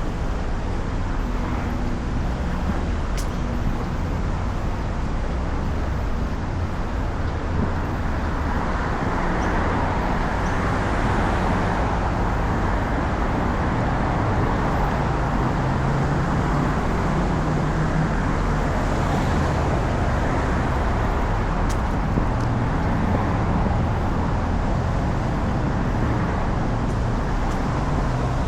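Steady road traffic going by, with a louder swell of passing vehicles through the middle and an engine hum as one goes past.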